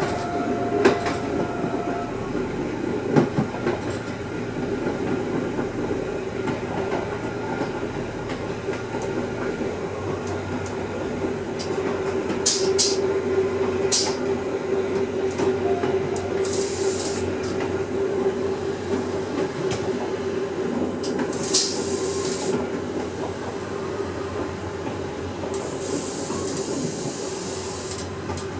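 Fiat-built ex-Swedish Y1 diesel railcar running along the track, heard from the driver's cab: a steady drone of the diesel engine and wheels on the rails, with a few clicks over rail joints in the first few seconds. Several short high hisses of air come in the second half, the longest near the end.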